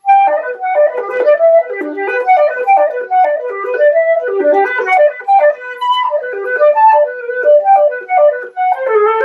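Silver concert flute played solo in practice: a quick melody of many short notes.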